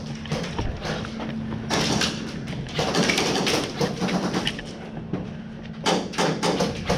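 Footsteps and gear rustling as an airsoft player moves quickly through an indoor arena, with irregular knocks and thuds. Near the end comes a quick run of sharp taps.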